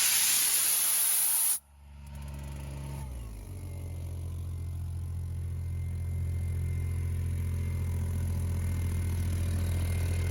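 A loud rush of hissing air for about a second and a half that cuts off abruptly, leaving the CompAir F42 portable compressor's engine running with a steady low hum, which settles slightly lower about a second later.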